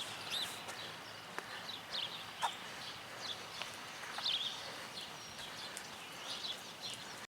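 Birds chirping with short, repeated calls over faint outdoor background noise, with a couple of light clicks; the sound cuts off suddenly near the end.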